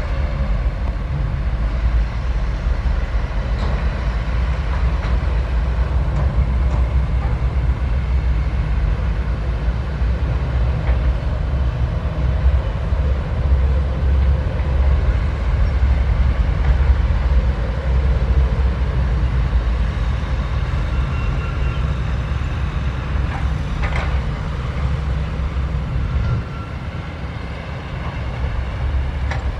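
SANY SY135F hydraulic excavator's diesel engine running under load while digging soil: a steady low engine sound with a few short knocks, dropping in level a few seconds before the end.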